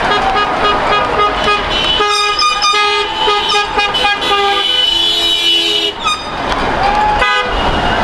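Car horns honking from passing cars: several horns overlapping in short toots, with one long held blast from about three to six seconds in. Traffic rumble runs underneath.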